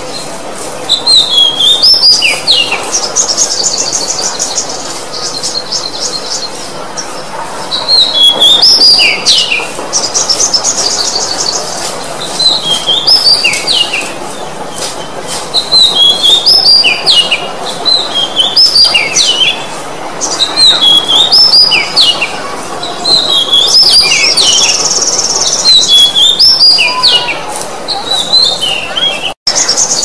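Oriental magpie-robin singing: short phrases of clear whistled notes stepping down in pitch, alternating with fast, high rattling trills, a new phrase every two to three seconds. The sound cuts out for an instant near the end.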